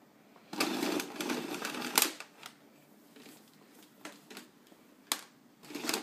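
Hands handling the plastic body and mains cord of a 1987 Hoover Turbomaster upright vacuum cleaner, giving a burst of clattering and rattling about half a second in that lasts about a second and a half. Scattered single clicks and a short rattle follow near the end.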